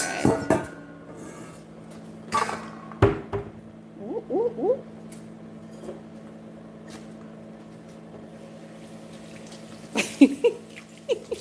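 A glass dish knocking and clinking against a stainless steel mixing bowl as diced vegetables are tipped and scraped in. There are a few sharp knocks in the first three seconds and a cluster of clinks near the end.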